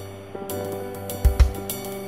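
Background music: sustained instrument tones over a light drum beat with hi-hat ticks, and two heavy bass-drum hits just past halfway.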